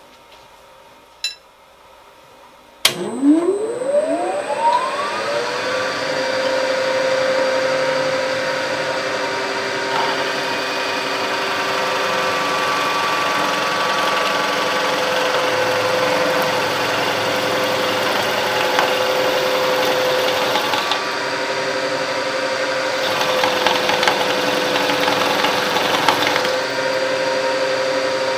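Bridgeport milling machine's spindle switched on about three seconds in, its whine rising in pitch as it spins up, then running steadily while a drill bit bores a sprue hole into an aluminum mold block.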